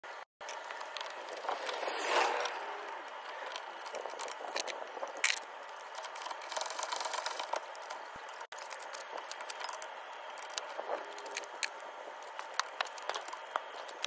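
Metal clicks, rattles and scrapes as a brake caliper bracket is handled and fitted over the front brake disc.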